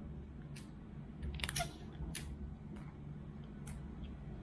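A few short crackles and clicks as strips of tape are torn off and pressed on, over a low steady hum.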